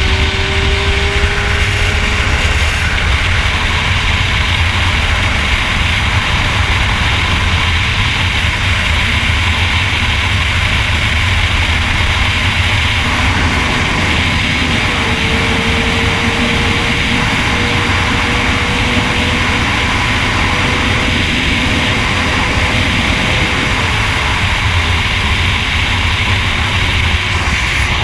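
Sport motorcycle at highway speed: heavy wind rush and low rumble on the microphone, with the engine's note faintly underneath, climbing slowly in pitch about halfway through.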